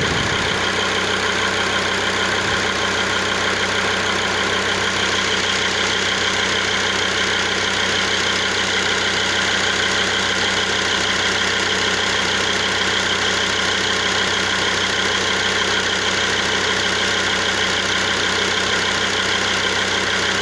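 Mercedes-Benz 2.7 CDI inline-five common-rail diesel engine idling steadily, heard close over the open engine bay.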